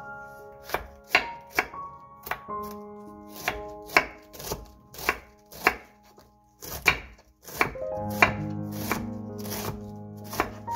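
Knife shredding a cabbage on a wooden cutting board: a run of crisp cuts at an uneven pace, roughly two a second, over background piano music.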